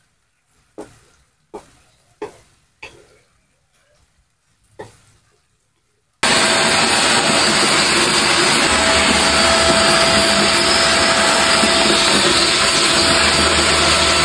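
A wooden spatula knocks against a wok about five times as a dish is stirred. About six seconds in, a corded stick vacuum cleaner starts abruptly and runs loud and steady, with a thin whine, as it picks up paper scraps from a floor.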